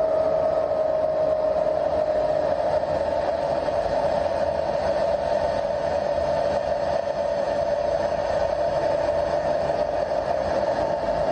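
Steady machine whine with a rushing noise behind it, its pitch sinking slightly over the first couple of seconds and then holding.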